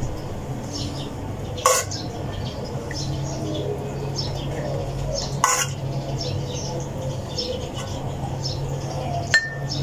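Metal ladle clinking against cookware three times as kheer is ladled from a metal pot into a glass bowl, the last clink ringing briefly, over a steady low hum.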